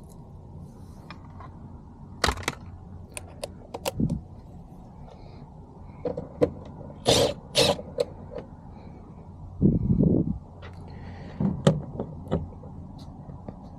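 Irregular clicks, taps and knocks of hand tools and plastic trim at a truck door while 7 mm screws are backed out of the interior door panel, with a few louder knocks partway through.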